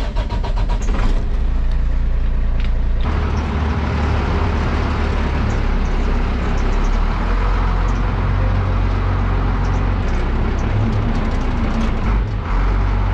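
International truck's engine running as the truck is backed up, a steady heavy engine note that strengthens about three seconds in as it takes load.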